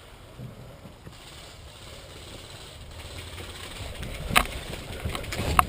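Quiet outdoor background, then from about four seconds in a few sharp, separate clicks or knocks.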